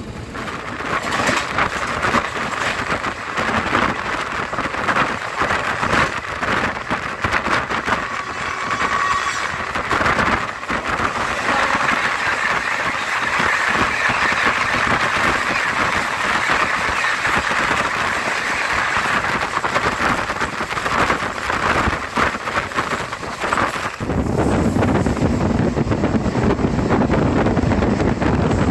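Passenger train passing at speed: a loud, steady rush of wheel and wind noise with rapid clattering over the rails. The noise turns to a deeper rumble about 24 seconds in.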